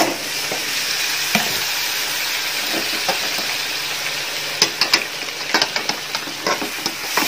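Onions sizzling steadily in hot oil in an aluminium pot as chopped tomatoes are tipped in for a biriyani masala. From about halfway, a metal slotted spoon clicks and scrapes against the pot several times as the mixture is stirred.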